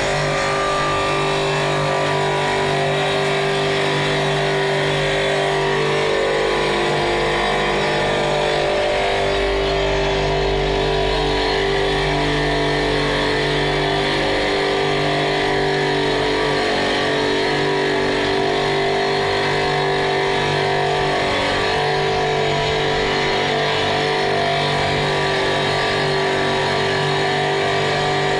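Stone-cutting saw running steadily, a continuous motor hum with blade noise.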